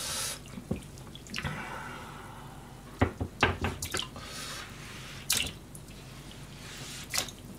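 Kitchen handling sounds at a metal pan of broth: drips and small splashes of liquid with several sharp clicks and knocks, the loudest a cluster about three seconds in. A short hiss of running water comes about a second and a half in.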